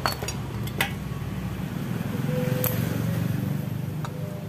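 A motor vehicle's engine rumbling, swelling for a second or so in the middle, with a few sharp metallic clicks of a long socket wrench being worked on a motorcycle cylinder head.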